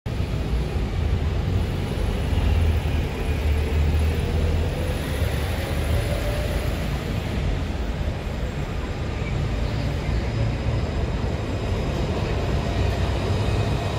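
Steady low rumble of city street traffic, with a Luas light-rail tram approaching along the street tracks and buses nearby.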